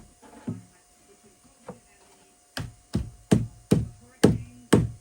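Blows struck on a wooden cabinet part to knock a freshly trimmed piece into place: two or three single knocks, then six hard blows about two a second near the end.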